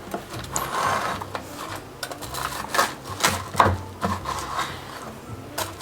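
Knife sawing through a crispy toasted sandwich: a run of uneven rasping, crunching strokes.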